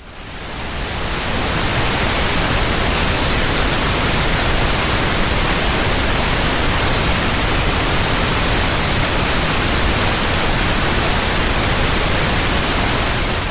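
Pink noise: a steady, even hiss spread across all pitches, smoother and less harsh than white noise. It fades in over about the first second.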